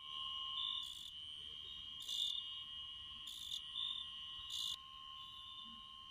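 Crickets trilling steadily, with four short raspy bursts about every second and a quarter in the first five seconds.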